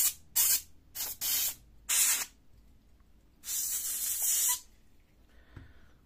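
Can of compressed air blowing through its straw onto a laptop cooling fan to clear dust: several short hissing blasts, then one longer blast of about a second.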